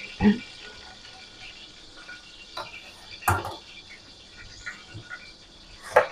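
Kitchen handling sounds: a plastic cooking-oil bottle being capped, then a few separate knocks and clunks of things set down on the counter, the sharpest about three seconds in.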